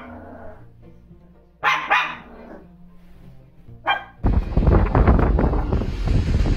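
Small dog barking: two or three sharp barks about a second and a half in and one more just before four seconds, over faint background music. From just past four seconds a loud, steady rush of wind and surf takes over.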